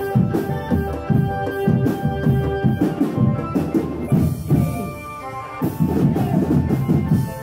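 Live drum band of marching bass drums and drums playing a fast, driving beat, with held melodic tones over it. The beat thins out briefly about four to five seconds in, then comes back in full.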